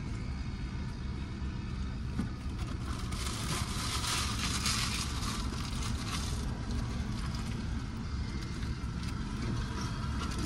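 Steady low rumble of a car engine idling, with a hissing swell for a few seconds in the middle.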